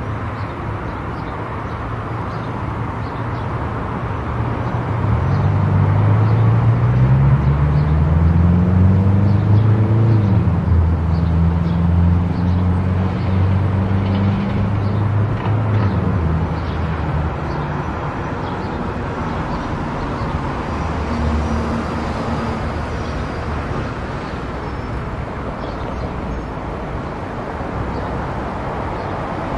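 Car driving on an expressway: steady tyre and road noise. A low engine drone rises in pitch and grows louder about five seconds in, then eases off after about sixteen seconds.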